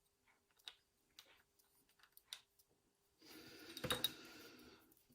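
Small, scattered metallic clicks and ticks of a euro lock cylinder's plug, follower and pins being worked by hand during rekeying. About three seconds in, a louder rustling noise with a couple of sharp clicks sets in for nearly two seconds.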